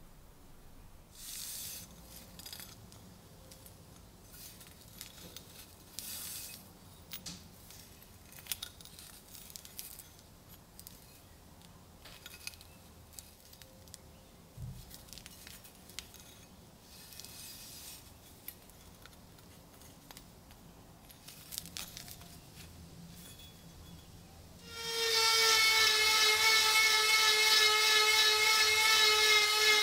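Faint clicks and rubbing as the rusty knife is handled. About 25 s in, a handheld rotary tool starts, with a loud, steady high whine, its bit working at the knife's bronze guard.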